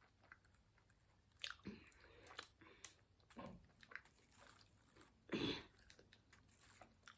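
Faint chewing and mouth sounds of a person eating a snack: small wet clicks, with one louder mouth noise about five and a half seconds in.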